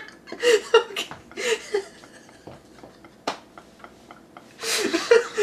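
Two men laughing: a few short bursts of chuckling, then a quieter lull broken by a single click, and a loud breathy burst of laughter near the end.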